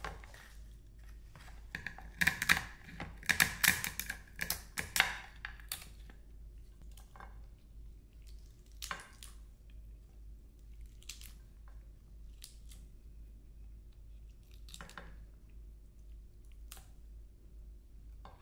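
Kitchen scissors snipping through the shell and legs of a soy-sauce-marinated female swimming crab, with crisp cracks of shell. There is a quick run of snips between about two and six seconds in, then scattered single cracks and clicks as the pieces are handled.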